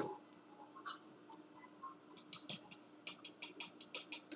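A quick run of light, sharp clicks, about six a second, starting about halfway through after a few scattered faint ticks.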